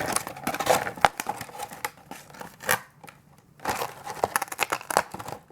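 Collector doll packaging being worked open to free the doll: crinkling, rustling packaging with sharp clicks and snips, pausing briefly about three seconds in.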